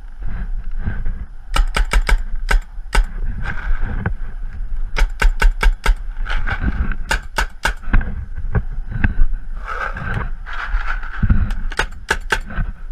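Paintball markers firing in quick strings of sharp pops, four to six shots close together, repeated several times. Heavy wind rumble on the microphone underneath.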